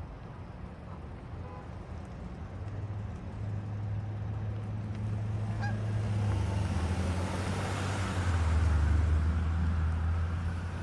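A motor's low drone builds over several seconds and is loudest near the end, its pitch dropping about eight seconds in, like a vehicle passing close by. A goose honks faintly once or twice.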